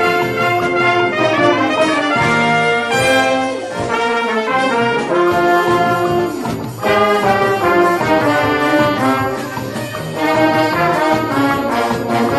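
Orchestra with trumpets and trombones playing a melody in short phrases, with brief breaths between phrases.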